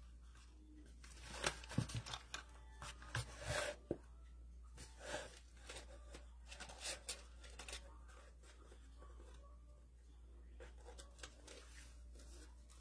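Dried floral greenery rustling and crackling in short, scattered bursts as it is handled and pressed into a craft piece, with a few light knocks in the first few seconds.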